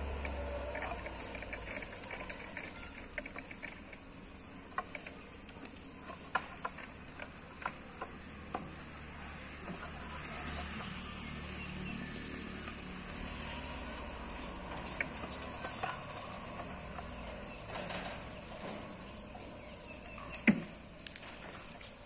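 Boer goats moving about on a concrete shed floor: scattered light hoof clicks and knocks, with one sharper knock near the end, over a steady faint high-pitched whine.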